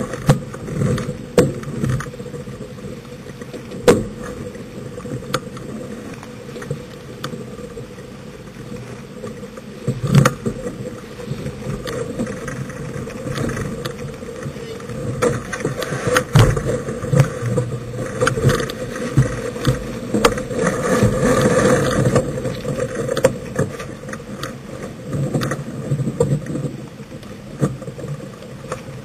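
Sailboat under sail: steady rushing of wind and water, with a few sharp knocks, and the noise swells louder about twenty seconds in.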